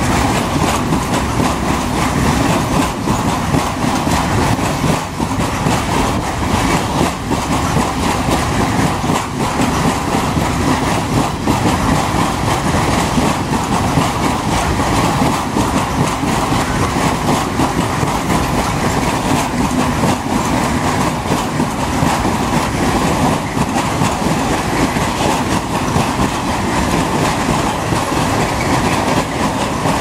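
A long train of Eas open freight wagons rolling past: a steady rumble with the clatter of steel wheels on the rails.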